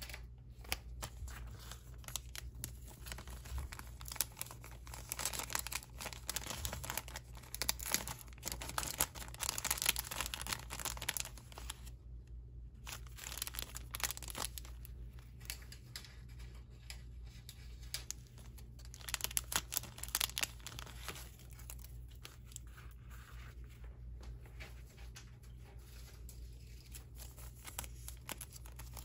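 Clear plastic jewelry bags crinkling and rustling as hands open them and slip beaded bracelets inside, in a run of small crackles with a short pause about twelve seconds in.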